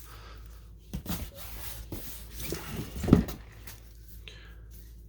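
Fireworks packaging being handled: cardboard and paper rustling and rubbing, with a click about a second in and a sharper knock about three seconds in, as a piece is set down or picked up.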